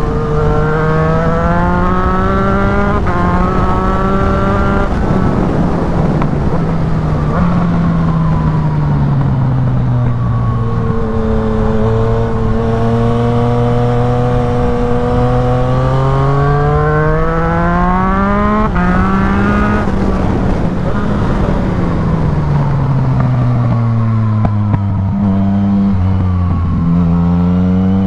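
Yamaha MT-09's three-cylinder engine through a full Black Widow aftermarket exhaust, under hard acceleration and engine braking: the pitch climbs, breaks off briefly at gear changes, and falls away again several times. Over a steady rush of wind noise.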